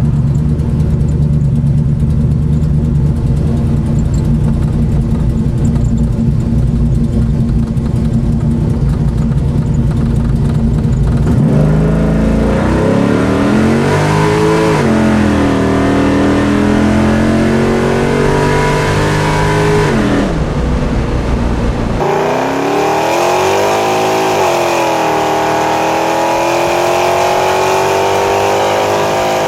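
Naturally aspirated 502 cubic-inch GM big-block V8 crate engine, fitted with a hydraulic roller cam and an aftermarket intake, running steadily, then pulling hard with its pitch climbing. The pitch dips briefly and climbs again, and after an abrupt change about two-thirds through it rises once more.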